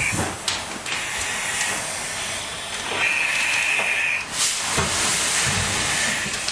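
Fire hose stream hitting a burning room, a steady hiss of water and steam, with a high whine for about a second midway and a brighter, louder hiss from about four seconds in as the flames are knocked down.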